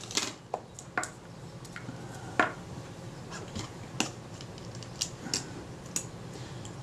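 Light, irregular metallic clicks and taps of a small tool against the disassembled Synchro-Compur shutter as its screws are checked, about eight in all, the loudest about two and a half seconds in.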